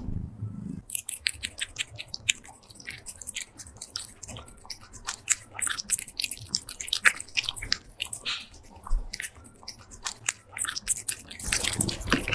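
A silver shaded cat chewing and crunching food close to the microphone: quick, irregular crunchy bites and mouth clicks, several a second.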